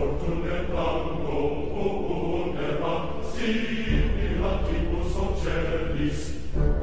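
Background music: choir-like chanting voices over a deep, sustained bass.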